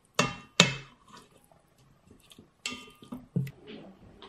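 A utensil clanking against the stainless steel inner pot of an Instant Pot, with a short metallic ring after each strike. There are two sharp clanks near the start, then three more about two and a half seconds later.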